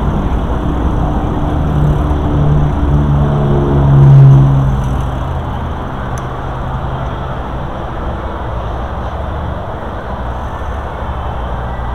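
Steady low rumble of wind and rolling noise, with a motor vehicle's engine rising in pitch and growing louder to a peak about four seconds in, then easing off.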